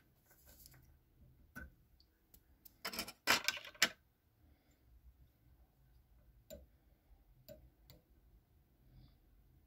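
Small clicks and taps of a fly-tying bobbin and thread being handled and wrapped around a hook held in a vise, with a quick run of louder clicks about three seconds in.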